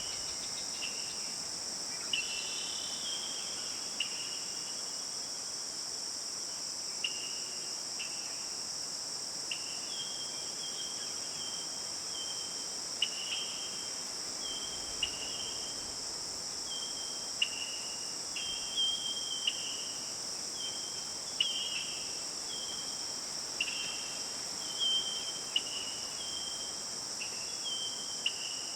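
Steady high-pitched drone of an insect chorus, typical of crickets, with short repeated bird chirps about once a second that come more often in the second half.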